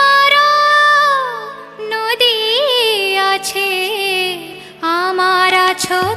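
A song: one voice singing long held, ornamented notes in phrases over a quiet, steady low accompaniment. The voice breaks off around two seconds in and again near five seconds, then resumes.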